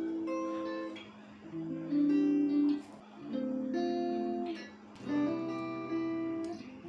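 Background music: acoustic guitar strumming chords that change about once a second.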